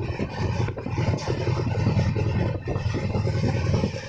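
Moving passenger train: a steady low rumble of wheels on the rails, with irregular rattling and clatter.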